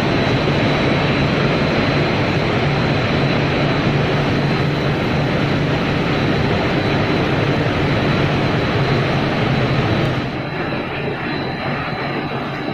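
Snack extruder and its drive motor running: a steady, loud machine drone with a thin, high, steady whine. About ten seconds in the sound drops and turns duller as the scene moves to another part of the line.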